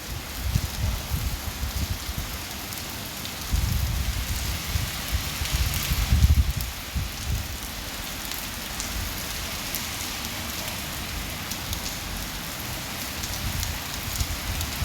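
Mild rain pattering steadily while strong wind gusts in low rumbles, the gusts heaviest in the first half and easing to a calmer rain later on.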